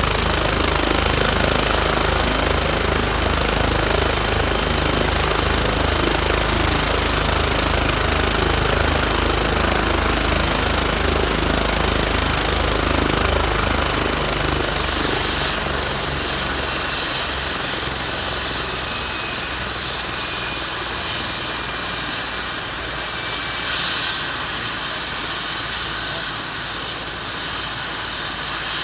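Medical helicopter at close range, its rotor beating in a fast, steady thump. About halfway through the rotor beat fades and the turbine's high hiss and thin whine take over.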